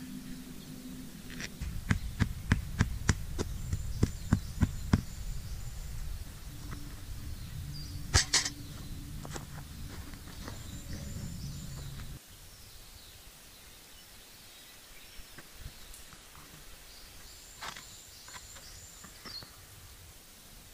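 A quick run of about ten sharp knocks, roughly three a second, then a single loud strike about eight seconds in, with birds chirping now and then. A low background rumble cuts off abruptly around twelve seconds, leaving quieter outdoor ambience with a few light clicks.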